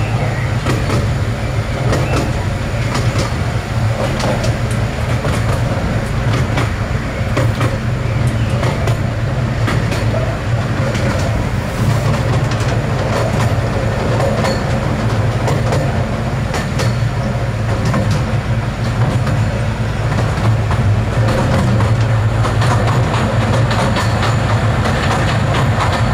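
Miniature railway train running, heard from an open passenger carriage behind its 0-6-0 locomotive: a steady low rumble with scattered clicks of the wheels on the track.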